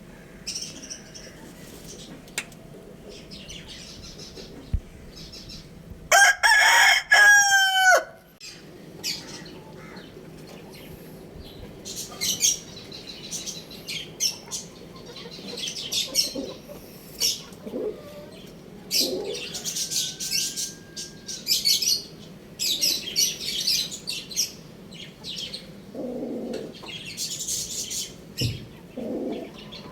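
A rooster crows once, a loud call of about two seconds some six seconds in, its pitch falling at the end. Around it, other fowl give many short, high chirps and a few lower clucks.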